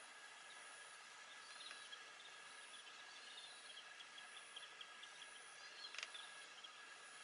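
Near silence: faint outdoor ambience with a steady hiss, a few faint short high chirps and light scattered ticking, and one sharp click about six seconds in.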